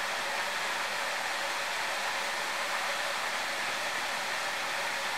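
Steady, even rushing of flowing water, a hiss that does not change.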